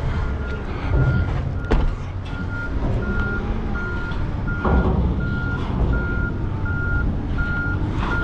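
A lugger truck's backup alarm beeping steadily, about three beeps every two seconds, over the low rumble of its running diesel engine. A sharp knock comes about two seconds in.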